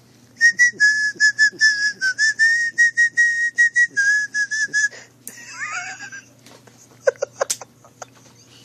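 A quick run of short, high whistled notes, nearly all on one pitch, about four or five a second for some four seconds. A brief gliding squeak follows, then a few sharp clicks near the end.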